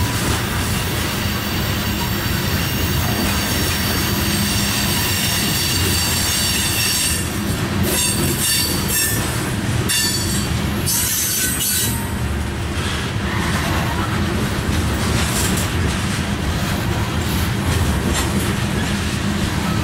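Loaded covered hopper cars of a freight grain train rolling past, steel wheels on the rails with a continuous rumble and a high-pitched wheel squeal through the first half. Sharp clanks and clatter come about halfway through.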